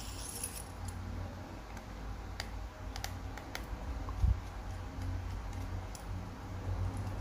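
Sparse small metallic clicks and taps of a precision screwdriver on the tiny screws of an iPhone 4S's internal shield plate, with one dull knock a little past the middle. A low steady hum runs underneath.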